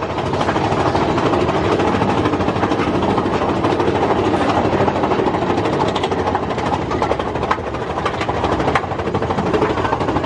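Big Thunder Mountain Railroad's mine-train roller coaster running along its steel track, a steady rumble and rattle with many quick clacks of the wheels over the rails.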